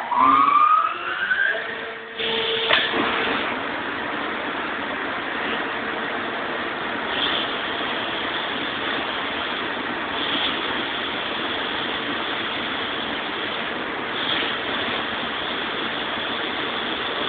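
Refurbished Sullair 16-100 rotary screw air compressor starting up. A rising whine as it spins up, then about two seconds in it settles into a loud, steady running noise with a rush of air, and a brief sharper hiss every three to four seconds.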